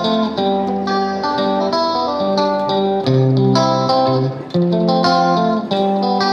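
Background music led by a plucked guitar, playing a steady run of notes.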